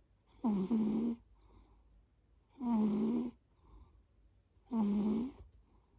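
A sleeping pet snoring: three rasping snores about two seconds apart, each lasting under a second, with faint breaths between them.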